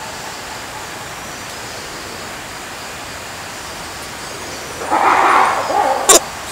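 Black-and-white ruffed lemur between bouts of loud calling. For most of the time there is only steady background hiss. About five seconds in comes a rough, noisy sound lasting about a second, then one short, sharp call just before the end.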